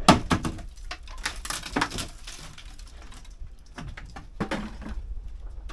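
Clattering and scraping as wooden pieces and household items are pulled and moved, with a sharp knock at the very start and more knocks and scrapes later on.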